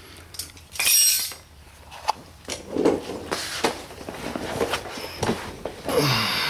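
A person getting down onto a concrete garage floor under a car: rustling, scuffs and light clinks, with a loud rustle about a second in and another near the end.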